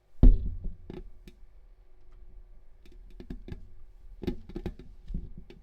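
A heavy thump, then irregular light clicks and taps, over a faint steady hum.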